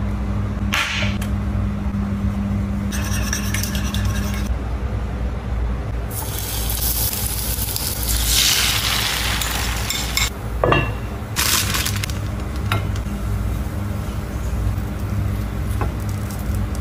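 A metal utensil beats eggs against a ceramic bowl. About six seconds in, loud sizzling starts as the beaten egg is poured into hot oil around frying sausage slices in a pan. A steady low hum and a few clinks of utensils on dishes run underneath.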